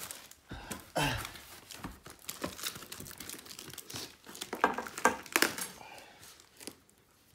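Packaging wrap on a car bumper being crinkled and torn off by hand, in irregular crackling bursts that die down near the end.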